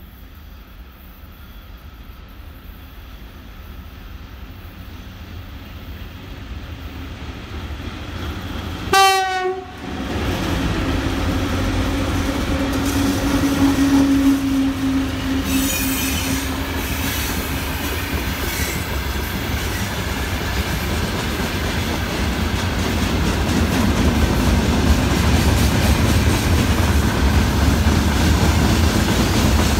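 Freight train hauled by two coupled VL10UK DC electric locomotives, approaching with a rumble that grows louder. About nine seconds in the locomotive gives one short horn blast. The locomotives then pass with a steady hum, followed by the freight wagons rolling by with loud wheel clatter and some squealing.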